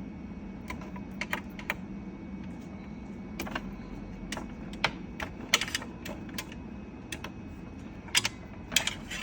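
Charging-lead plugs being pulled out of a charging station's controller box and the cables handled: many sharp, irregularly spaced plastic clicks and taps over a steady low hum.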